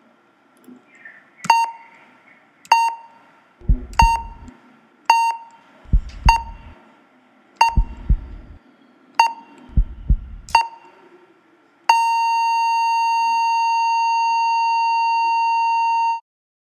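Heart-monitor sound effect: eight short electronic beeps about one to one and a half seconds apart, several of them with deep heartbeat thuds, then one long unbroken tone of the same pitch for about four seconds before it cuts off. The flatline tone signals cardiac arrest.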